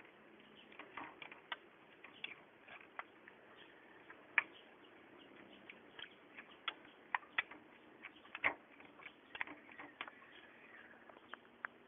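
Metal spoon clicking and scraping against a ceramic plate as a leafy fern and onion salad is tossed: scattered light clicks at an uneven pace, the sharpest about four seconds in and a cluster of louder ones around seven to nine seconds.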